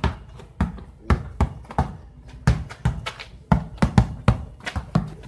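Basketball dribbled hard on a paved street: quick, uneven bounces about three a second.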